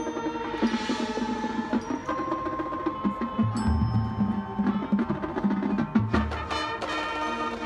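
Marching band field-show music: the front ensemble's marimbas and other mallet percussion play with sharp percussion clicks over held band chords. Deep low notes come in about three and a half seconds in and again around six seconds.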